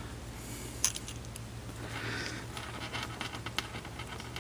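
Small clicks and soft scraping from handling a banana plug, as its cover is pushed and twisted over the screw and resists going on. A steady low hum runs underneath.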